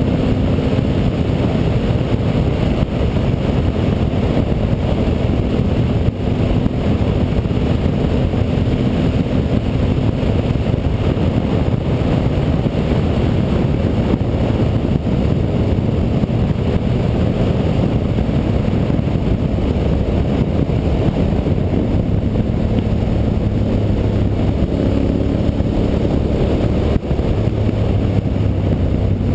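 Honda Varadero 1000's carbureted 90-degree V-twin engine running steadily while riding, heard from on board; the engine note shifts near the end.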